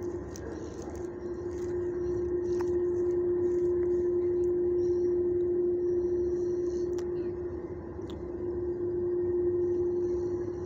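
A steady hum held at one pitch, with a low rumble underneath.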